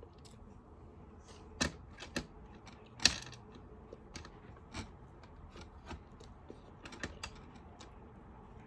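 Scattered light plastic clicks and taps, about a dozen irregular ones, from small toy game pieces being picked at and fumbled. The sharpest clicks fall about one and a half and three seconds in.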